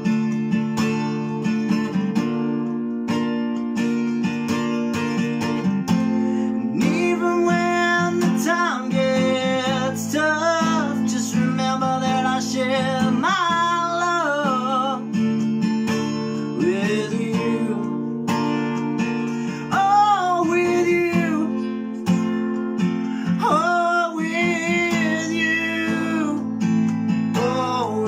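Acoustic guitar strummed steadily, with a man singing over it in long, sliding phrases.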